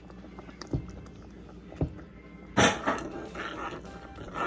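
A metal spoon stirs thick chocolate icing in a saucepan, knocking twice against the pot. Just past halfway a sudden loud burst of noise cuts in, followed by about a second of clattery sound.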